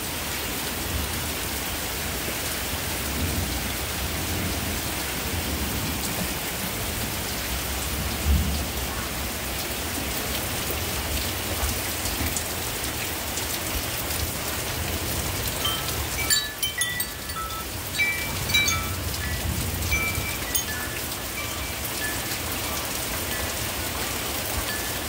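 Heavy rain pouring down steadily, with a low rumble through the first half. Past the middle, a metal-tube wind chime rings a handful of scattered clear notes.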